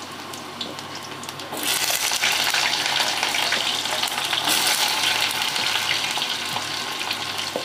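Pumpkin pieces frying in hot mustard oil in a wok, a steady sizzle as more pieces are added. The sizzle grows louder about one and a half seconds in, with small crackles through it.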